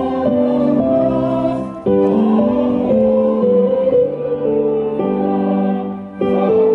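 Church music: slow, held chords played on a keyboard, with a brief dip in level near the end.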